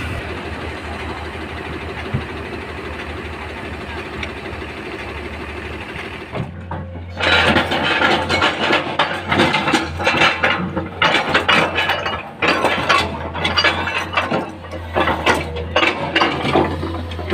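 Steady vehicle engine noise at first. About six seconds in, rocks and soil clatter and bang irregularly into the steel body of a Tata tipper truck as an excavator bucket dumps its load, over a steady engine hum.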